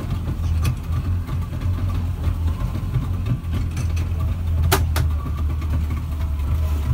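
Speed boat engine running with a steady low drone, heard from inside the passenger cabin. Two sharp clicks come close together about five seconds in.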